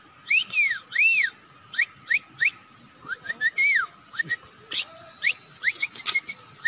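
A man imitating an animal call by mouth-whistling: two loud arching whistled notes, then a run of short, quick upward-sweeping chirps with another arching note in the middle.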